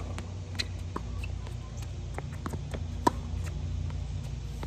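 Tennis rally on a hard court: a racket strikes the ball with one sharp pop about three seconds in, among fainter clicks and knocks from ball bounces and footsteps, over a steady low background hum.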